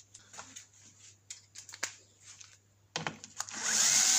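Light clicks and knocks of tool handling, then about three and a half seconds in a cordless drill-driver spins up with a steady whine, backing out a screw from the engine's top housing.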